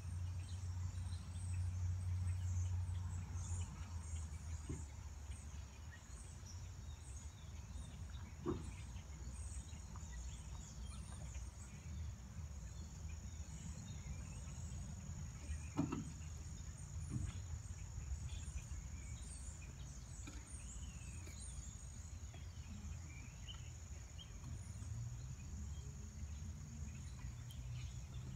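Outdoor ambience: a steady high-pitched insect chorus with small chirps over a low rumble, and two brief knocks about a third and about halfway through.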